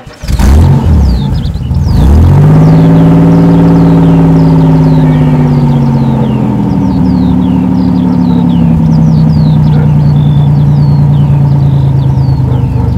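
Car engine sound effect: the engine revs up twice in the first two seconds, then runs steadily with its pitch slowly dropping. Short high chirps sound over it throughout.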